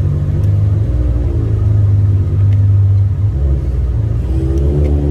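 BMW engine running through newly fitted aftermarket exhaust pipes, a steady deep exhaust note. Near the end the pitch shifts up and down a little.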